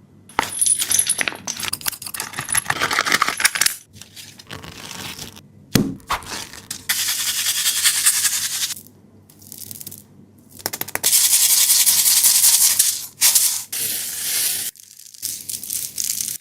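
Soft PU foam squishies being squeezed and handled in a series of short clips: stretches of loud rustling, crinkling noise, each cutting off abruptly, with a few sharp clicks between them.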